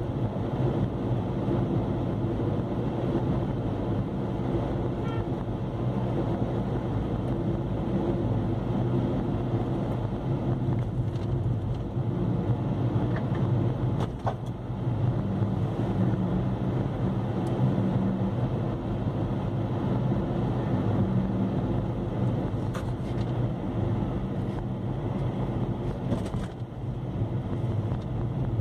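Steady engine and road noise heard from inside a moving car: a low hum whose pitch shifts slightly about halfway through.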